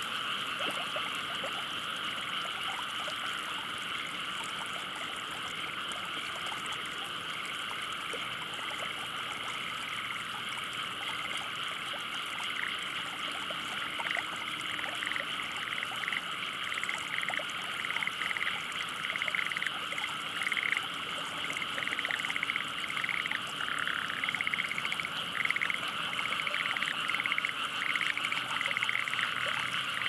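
A dense chorus of many frogs calling together in a steady massed trill. From about halfway through, individual rapid pulsed calls stand out more clearly and a little louder over the chorus.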